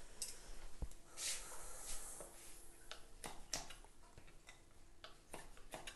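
Knife slicing peeled almonds on a wooden chopping board: a series of irregular, fairly faint clicks and taps as the blade cuts through and meets the board.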